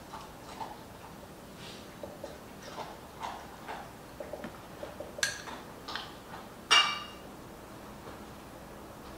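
Scattered light taps and clinks of glassware and dishes being handled on a kitchen counter, with two sharper clinks about five and seven seconds in.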